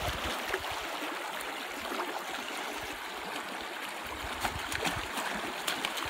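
Fast river water rushing and churning around a wading angler's legs, a steady noise with a few short sharp sounds near the middle and end.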